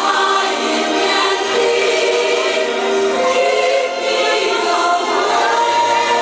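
Music with a choir of voices singing in harmony, loud and without a break.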